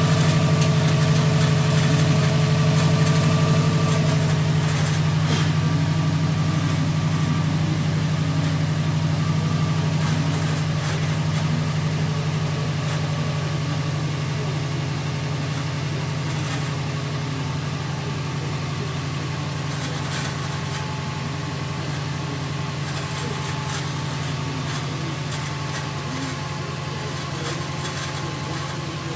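2008 Subaru WRX's turbocharged flat-four idling cold, with a steady extra tone over the engine note that is clearest for the first few seconds. It is the weird noise that is heard only when the car is cold and that goes away when the clutch pedal is pressed in.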